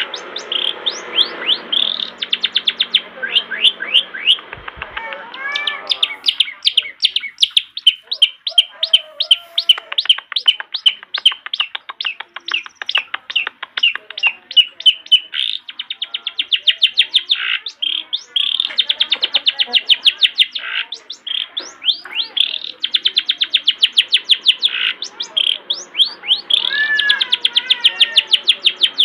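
Long-tailed shrike (cendet) singing a fast, chattering song: long runs of rapid high notes, many a second, broken by a few short pauses and mixed with some gliding calls.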